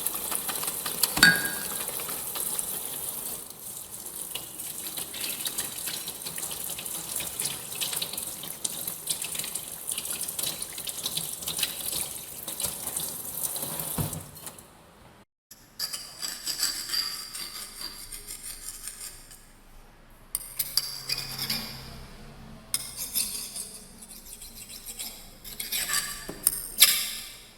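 Kitchen tap running steadily into a sink, with a sharp clink about a second in. After a short break near the middle, a second, more uneven stretch of water sounds starts and stops.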